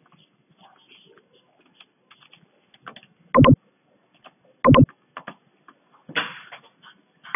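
Scattered faint clicks of a computer keyboard and mouse, broken by three short, loud sounds a second or more apart, the last near the end, and a brief noisy burst about six seconds in.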